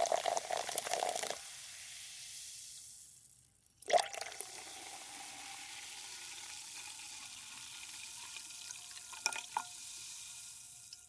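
Soda poured into a glass: the pouring stream stops about a second in and leaves the carbonation fizzing with a steady hiss. A brief sharp sound comes about four seconds in, two small ones come near the end, and the fizz fades away.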